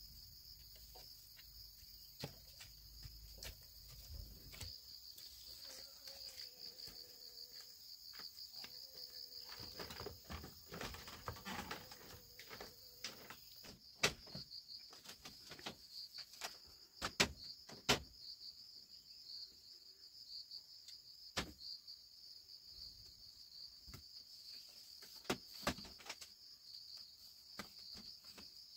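A steady, high chorus of insects trilling, with scattered light clicks and knocks throughout.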